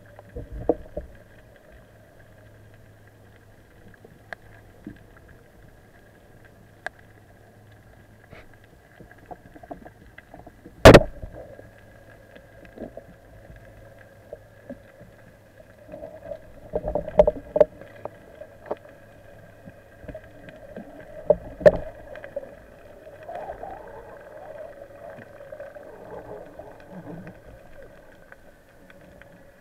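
Underwater sound of a spearfishing dive: a steady low hum, then a single loud sharp crack about eleven seconds in. Bursts of knocks and rattles follow, then water sloshing and gurgling near the surface as the speared Atlantic bonito struggles on the shaft.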